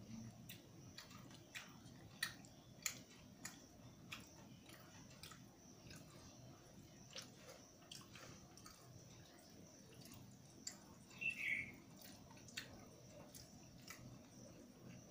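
Quiet sounds of eating rice and dal by hand: fingers squishing and mixing the food on a steel plate, with scattered soft clicks of chewing and mouth sounds. A short high chirp comes about eleven seconds in.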